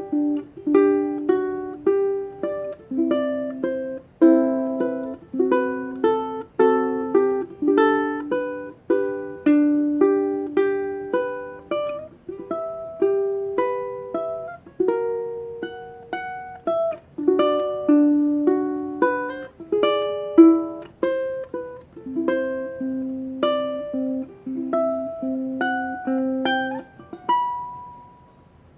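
Solo ukulele playing a slow, gentle melody in fingerpicked plucked notes that ring and fade, with a pause near the end as a phrase closes.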